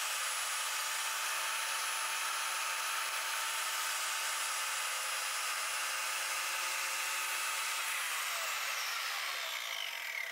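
Table saw running at full speed and cutting a notch in a window sill board, a steady even whine. About eight seconds in it is switched off and the pitch falls as the blade spins down.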